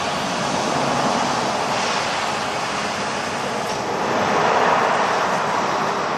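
Three-roll plate bending machine running, a steady mechanical noise that swells a little about four seconds in.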